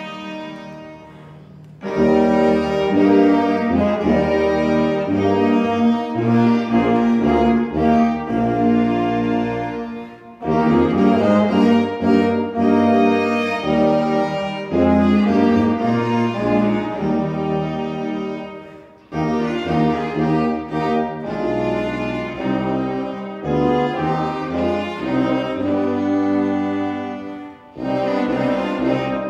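Small chamber ensemble of violins, cello, trombone and tuba playing a slow hymn tune in long held notes, phrase by phrase, with a brief dip in sound between phrases about every eight or nine seconds.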